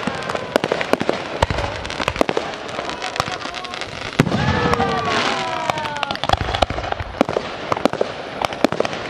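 Aerial fireworks shells bursting in quick, irregular volleys of sharp bangs and crackles. A louder, denser stretch comes about four seconds in.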